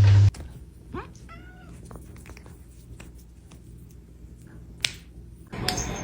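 A hairless cat's short yowl, a fighting cry, rising about a second in and bending for under a second. Faint clicks follow, with a sharp tick near the end.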